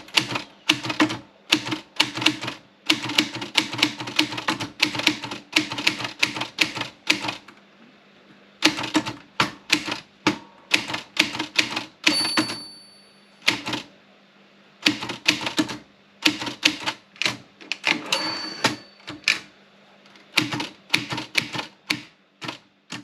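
Olympia Splendid 33 manual portable typewriter being typed on: runs of rapid key strikes with short pauses. Twice a ringing tone sounds, the end-of-line bell, followed by the carriage being returned.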